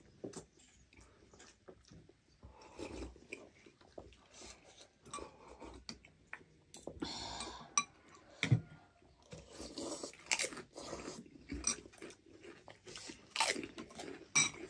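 Close-up eating sounds from people eating thukpa noodle soup: irregular chewing and slurping, with a few sharp clinks of metal cutlery against glass bowls.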